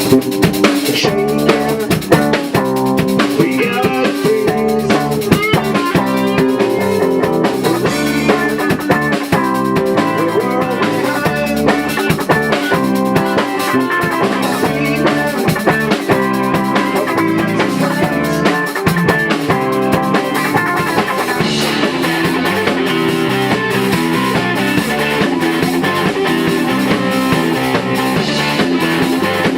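Rock band playing a song: a drum kit keeping a steady beat under guitars.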